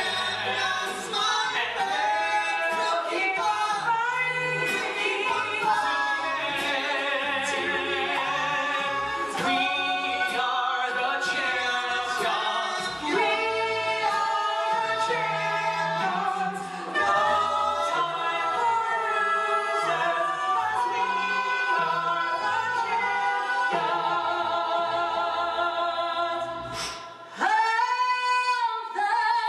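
Mixed male and female a cappella vocal group singing in close harmony over a sung bass line and beatboxed vocal percussion. About 27 seconds in, the bass and percussion stop and the voices slide up together.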